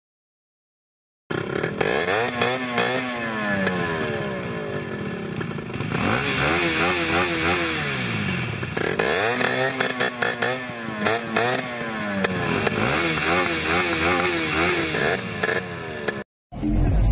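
After about a second of silence, a Yamaha RX100's two-stroke single-cylinder engine is revved over and over, its pitch climbing and falling in repeated swells. It cuts off abruptly shortly before the end.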